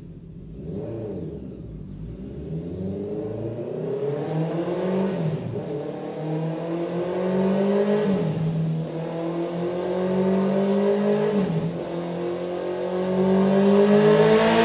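Honda CB650R inline-four engine running through a Mivv MK3 aftermarket exhaust, revving with its pitch climbing gradually and dipping briefly three times. It gets louder toward the end.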